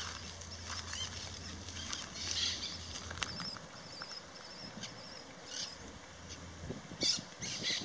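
Small birds chirping in dry scrub, with a warbling high trill a few seconds in and a cluster of sharp chirps near the end.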